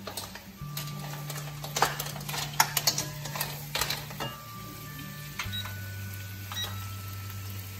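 Background guitar music with held bass notes, over irregular clicks and clatters of kitchen utensils, loudest in the first half.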